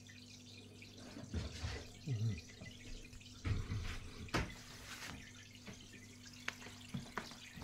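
Aquarium filter running: water trickling and dripping over a steady low hum, with a few soft knocks and a sharp click about halfway through.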